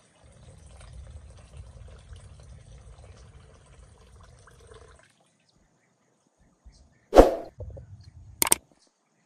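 Water poured in a thin stream from a clay jug into a wooden bowl of rice, faint and even, stopping about five seconds in. Then comes a loud sharp knock about seven seconds in and a second, shorter knock a little over a second later.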